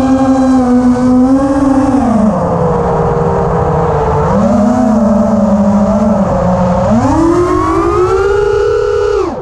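Electric motors and propellers of an FPV aircraft whining steadily, the pitch following the throttle: it drops about two seconds in, lifts briefly around four and a half seconds, climbs again at about seven seconds, and dips sharply at the very end.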